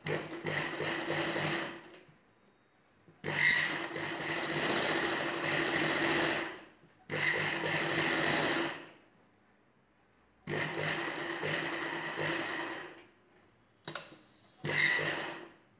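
Ralson sewing machine running in several short runs of one to three seconds, stopping and starting between them, as it topstitches a blouse neck edge with the lining folded inside.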